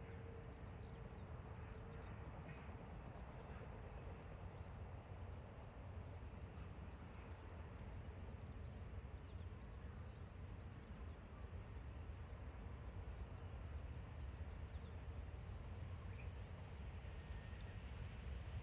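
Low, distant rumble of a locomotive-hauled sleeper train approaching on the rails, growing slightly louder toward the end, with faint scattered bird chirps above it.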